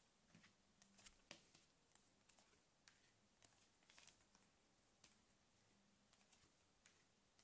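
Near silence, with faint scattered ticks and slides of oracle cards being dealt off a deck and laid down on a cloth-covered table.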